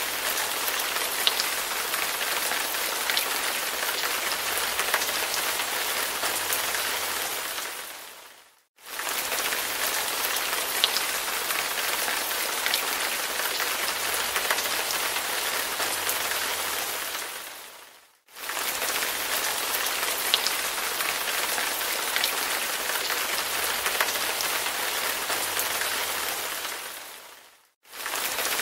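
Recorded rain: a steady hiss of rainfall with an occasional sharper drop tick. It fades out to brief silence and straight back in three times, about every nine and a half seconds, like a short loop repeating.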